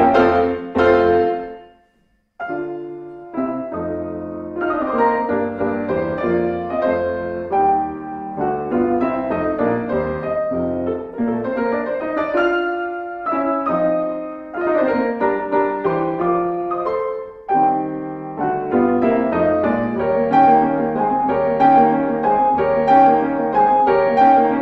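Solo piano music playing, breaking off briefly about two seconds in and then going on.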